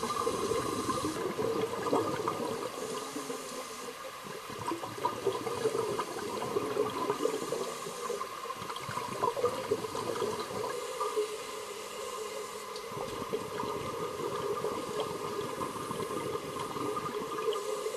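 Aquarium water bubbling and gurgling steadily, with a constant crackle of small bubbles.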